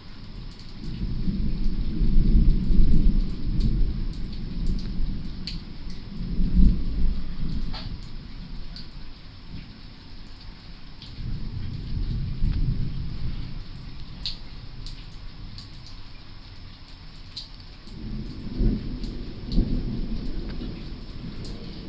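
Thunder rolling in three long, deep rumbles, the first the loudest, over steady rain with scattered drops ticking.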